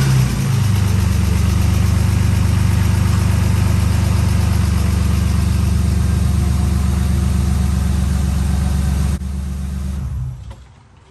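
BMW E36 M3's straight-six engine idling steadily just after being started, run briefly to circulate fresh oil after an oil change. It is switched off a little after ten seconds in, and the sound dies away.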